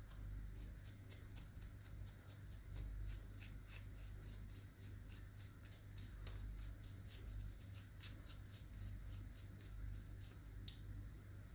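Rapid, even scratching or brushing strokes, about five a second, with a short break near the end, over a low steady hum.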